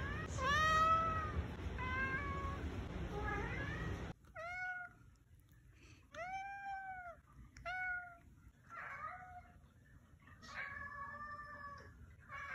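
Tabby domestic cat meowing again and again: about ten short meows, each rising then falling in pitch. The background hiss drops away about four seconds in.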